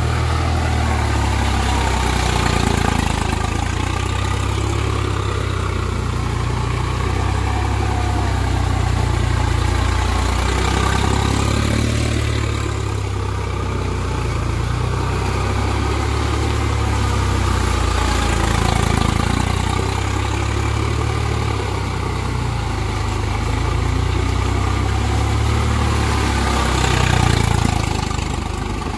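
Swaraj 735 FE tractor's three-cylinder diesel engine running steadily under load as it drags its iron cage wheels through flooded paddy mud, with a brief rise in engine noise near the end.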